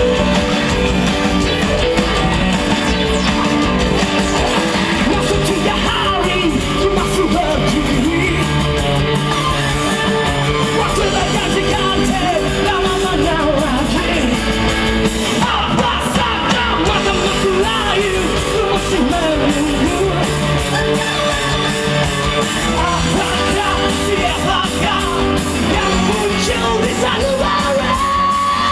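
Rock band playing with electric guitar and drums under a loud sung and shouted vocal, the music running without a break.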